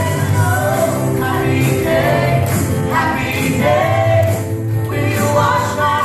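Live gospel praise music: several singers in a group, with a keyboard, electronic drums and a bass guitar.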